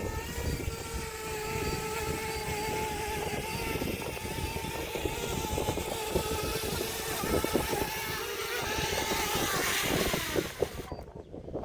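DJI Mini quadcopter's propellers whining steadily with strong wind buffeting the microphone. The whine sinks a little in pitch late on and drops away shortly before the end.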